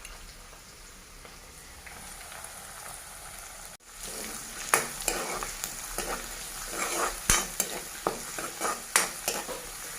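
Onion and ground garlic frying in hot oil in a pan: a steady sizzle at first, then, after a brief dropout about four seconds in, louder sizzling with repeated scrapes and knocks of a utensil stirring against the pan.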